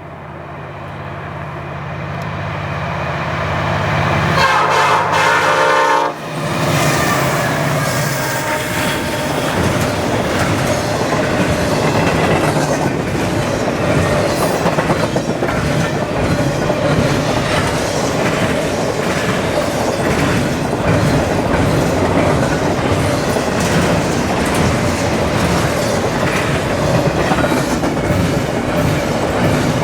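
CN SD75I diesel locomotives approach, growing louder. About four seconds in, a Nathan P5 five-chime air horn sounds one blast of nearly two seconds and cuts off sharply. The steady rumble and clickety-clack of freight cars rolling past follows.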